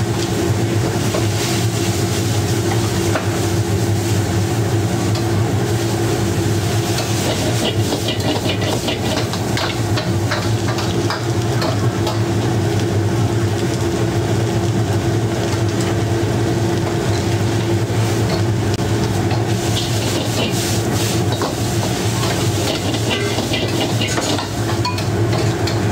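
Rice noodles sizzling as they are stir-fried in woks, with metal ladles scraping and clacking against the wok, over a steady low kitchen hum. The ladle clacks come in quick runs about a third of the way in and again in the last few seconds.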